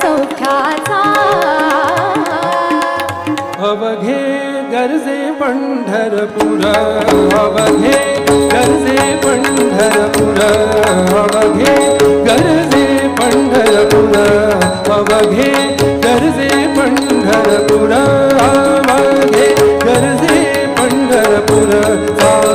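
Live Indian classical-style vocal performance: a singer with tabla and harmonium accompaniment. The drumming grows fuller and more driving about six seconds in, under the voice and the harmonium's held notes.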